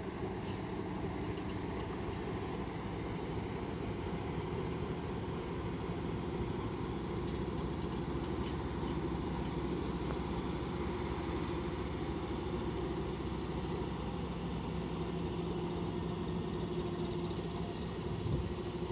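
Diesel engine of a PKP Cargo SM42 shunting locomotive running steadily at low revs as the locomotive moves slowly past. Birds chirp faintly over it.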